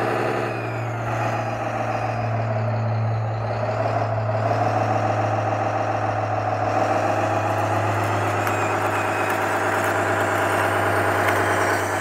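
Electric hydraulic pump system of a 1/14-scale Stahl/Liebherr 742 RC bulldozer running steadily under a low hum. Its pitch dips about three to four seconds in and then rises again, as the hydraulics take and release load.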